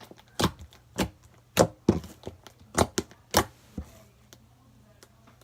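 Fluffy slime being poked, giving irregular sharp pops and clicks, roughly two a second, as its air bubbles burst.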